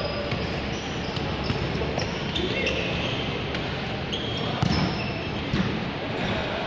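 Futsal ball being kicked and thudding during play, with a few sharper thumps about four and a half and five and a half seconds in, over players' distant calls.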